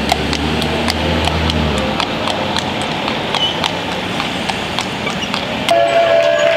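A horse's hooves clip-clopping on a paved street in an even rhythm as it pulls a wagon. A low hum sits underneath for the first two seconds, and a steady held tone comes in near the end.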